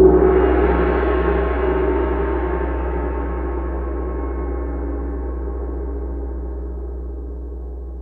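Intro sound effect: a single deep cinematic hit that starts suddenly, followed by a low rumble and a cluster of ringing tones that fade away slowly.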